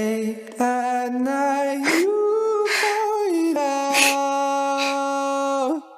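A slow sung melody: a single voice holding long, sustained notes with breaths between phrases, stopping just before the end.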